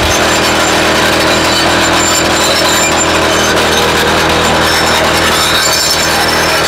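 YN30A two-stroke petrol rock drill running steadily under load, drilling into rock.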